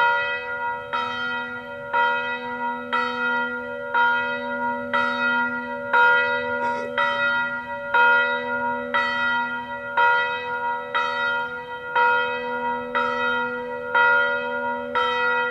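Church bell tolling slowly and evenly, about one stroke a second, each stroke ringing on into the next.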